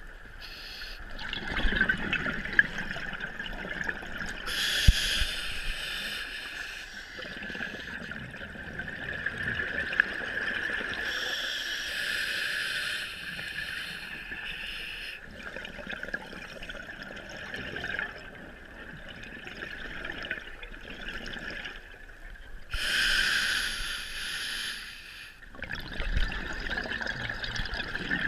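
Scuba diver breathing through a regulator underwater: slow breaths with gurgling rushes of exhaled bubbles, a few loud surges lasting a couple of seconds each.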